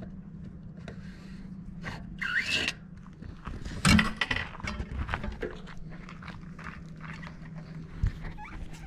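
Mountain-bike rear wheel being taken out of the frame: scraping and small clicks of the axle and metal parts, with one sharp knock about four seconds in, over a steady low hum.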